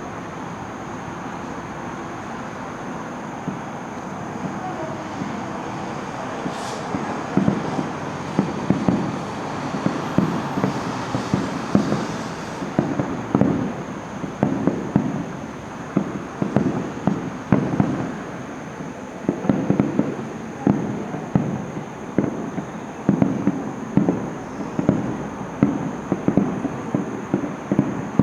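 Fireworks display: aerial shells bursting in rapid volleys of sharp booms, starting about seven seconds in over a steady background noise and going on in clusters.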